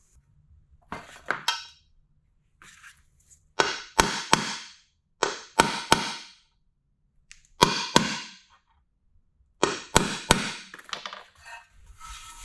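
A hammer tapping a new oil seal into an engine timing cover, sharp metallic blows in short groups of two or three, about every two seconds, driving the seal in until it sits flush.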